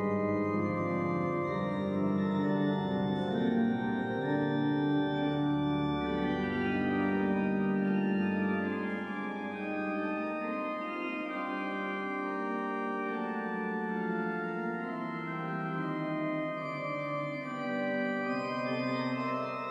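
Organ music with slow, sustained chords that shift every few seconds.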